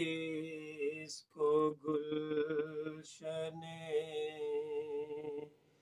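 A man chanting a manqabat, an Urdu devotional poem, solo and without accompaniment, drawing each word out in long held notes, with two short breaks between phrases.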